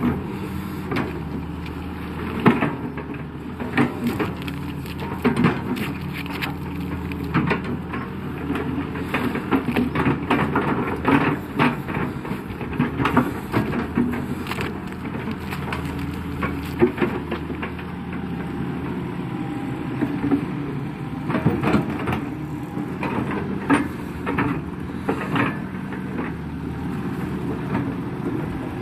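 Kato HD512 crawler excavator's diesel engine running steadily under load while digging, with frequent sharp clanks and knocks from the working machine.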